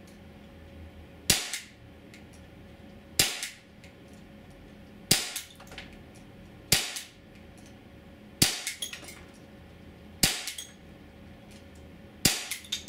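Jericho 941 (Swiss Arms 941) CO2 BB pistol firing 4.5 mm steel BBs through a chronograph: seven sharp shots about every two seconds. The later shots are each followed by a few lighter clicks.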